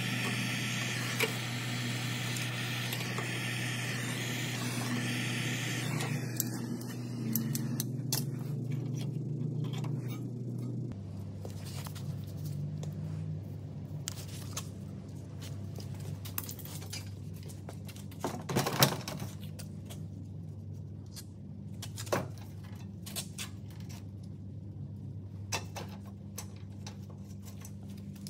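Steady low hum of a workshop with scattered metallic clinks and knocks from hand tools and parts being handled, and one louder knock about two-thirds of the way through. A hiss sits over the hum for the first seven seconds or so, then stops.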